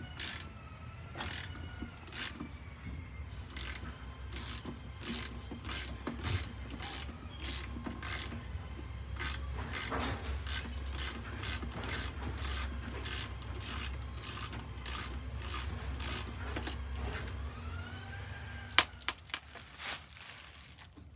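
Hand ratchet wrench clicking in short, even strokes, about two a second, as a bolt on the ATV's front shock mount is turned. A single sharp metal clank comes near the end.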